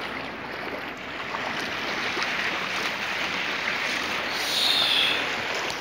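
Steady rush of shallow sea water washing in waves, with a brief high tone about four and a half seconds in.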